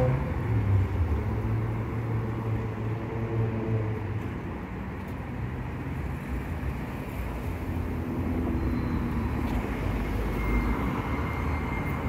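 Downtown street traffic: cars driving through the intersection, engines running and tyres on the road. A low engine hum fades after about four seconds, leaving steady road noise.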